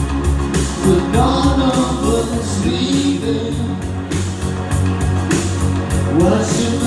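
Male vocal group singing live into microphones over amplified backing music with a steady beat.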